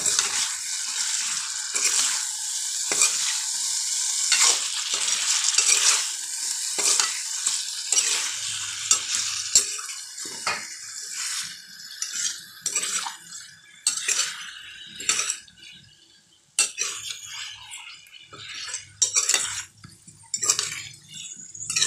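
Metal ladle stirring chunks of jackfruit curry in a metal karahi, scraping and knocking against the pan over the sizzle of the frying masala. The sizzling is strongest for the first several seconds; after that the irregular scrapes and knocks of the ladle stand out.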